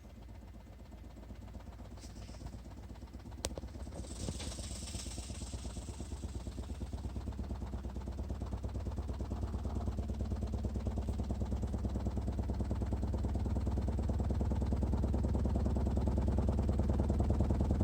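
Repaired Cadence Beast 12 12-inch subwoofer playing deep bass, growing steadily louder with a fast, even pulsing.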